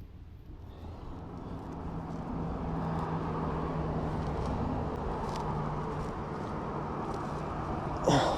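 Road traffic passing on an overpass: a rumble that swells over the first couple of seconds and then holds steady, with a low engine hum. Near the end comes one short, loud sound that drops sharply in pitch.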